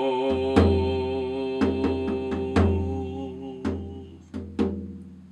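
A man singing one long held note that fades out about three and a half seconds in, accompanied by a hand-held tom-style drum slapped with the palm. The drum gives deep beats about once a second, then several quicker, lighter taps near the end.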